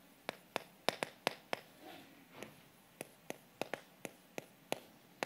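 Chalk writing on a blackboard: a string of sharp, irregular taps and short scrapes, about three a second, as the chalk strikes the board.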